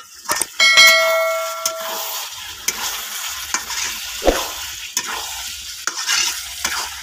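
Chicken and potato curry sizzling in a pan while it is stirred and scraped with a spatula, at the stage where the oil has separated from the meat. A single metal clang about a second in rings on for about a second and is the loudest sound.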